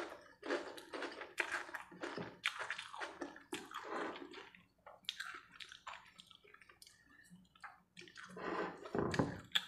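Close-miked slurping of noodles and wet chewing, a rapid run of short sucking, smacking mouth sounds over the first half. They thin out, then come in another burst of slurping near the end.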